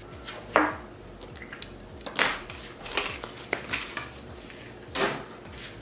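Glass items clinking and knocking against a hard surface as they are handled and set down: about half a dozen separate knocks.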